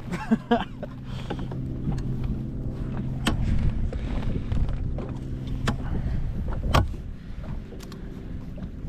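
A boat's small electric motor humming steadily, fading out about halfway through, with a few sharp knocks and clicks on the boat.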